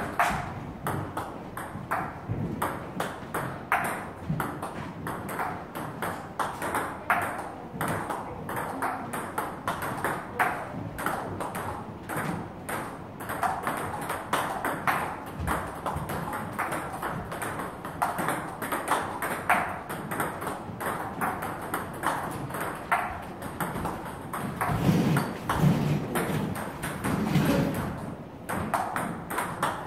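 Table tennis rally: a continuous run of sharp clicks as the celluloid-type ball strikes the rubber bats and bounces on the table, one side returning with Butterfly Ilius S long-pimpled rubber.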